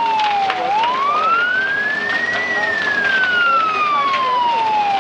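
Emergency-vehicle siren sounding a slow wail: the pitch falls, climbs for about two seconds to a peak about halfway through, then slides back down.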